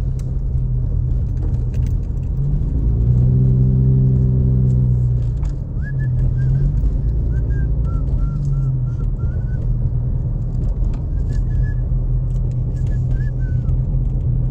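Car engine and road rumble heard from inside the cabin while driving slowly. The engine note swells for a couple of seconds about three seconds in, then settles. Short, high chirps come and go through the second half.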